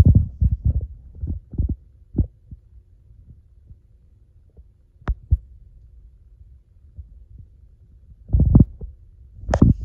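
Handling noise: muffled low thumps and bumps close to the microphone, several in quick succession at first, a sharp click about five seconds in, and louder thumps near the end.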